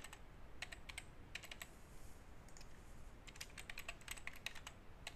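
Faint computer keyboard typing: keys tapped in quick runs with a short pause in between, as a password is typed in twice.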